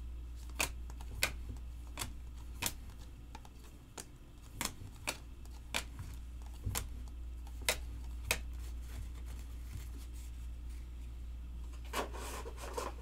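Stiff chrome trading cards being flipped through by hand, a sharp click each time a card is moved onto the stack: about every half second at first, then more spaced out. A steady low hum lies underneath.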